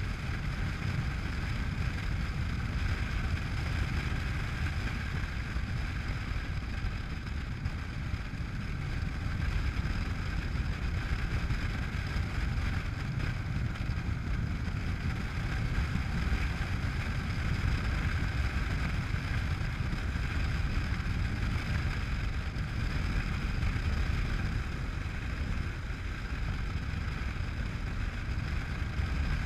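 Honda NC700X motorcycle cruising at a steady speed: its parallel-twin engine running under a constant rush of wind on the microphone.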